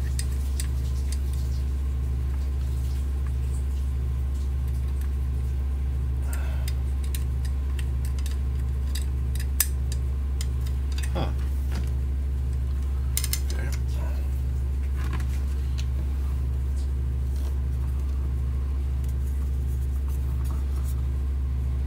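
Scattered clicks and light knocks of a pistol crossbow's plastic and metal parts being handled while a bolt on the limb mount is loosened. Under them runs a steady low electrical hum with a faint, even pulse.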